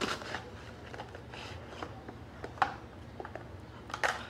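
Quiet handling of a paperboard box and plastic flashlights: light rustling and scraping of cardboard flaps with scattered clicks of plastic as the lights are pulled out and set down, the sharpest click about two and a half seconds in.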